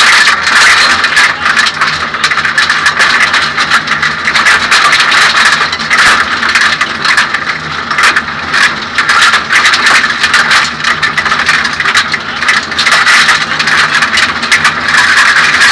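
Suzuki Swift 1600 N2 rally car's 1.6-litre four-cylinder engine running hard under load, heard from inside the stripped cabin, with constant rattling and clatter from the shell and the loose road surface.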